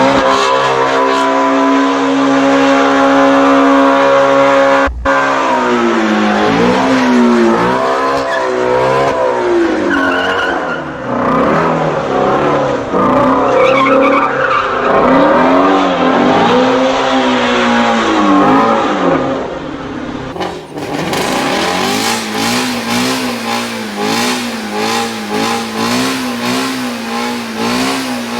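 Ford Shelby GT350's 5.2-litre flat-plane-crank V8 held at high revs with tyres squealing, as in a burnout. After an abrupt break about five seconds in, the revs swing up and down again and again, as in donuts. Near the end it settles into a steadier, slightly wavering note with a rough hiss over it.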